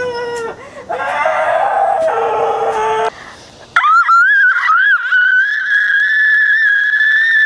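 A person screaming: a wailing cry for the first three seconds, then from about four seconds in a long, very high scream that wavers at first and then holds steady.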